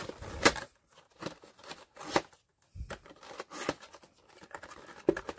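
Small printed cardboard box being handled and its end flap pried open: a string of crisp scrapes and clicks of card against card, the loudest about half a second in.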